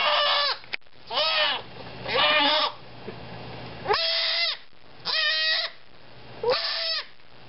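Goat kid bleating loudly over and over, about six wavering cries of half a second each. It is crying out while a hot disbudding iron burns its horn bud and it is held still.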